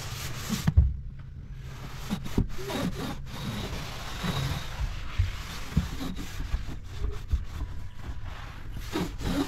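Rubbing and scrubbing on car interior surfaces, with scattered knocks and a thump just under a second in.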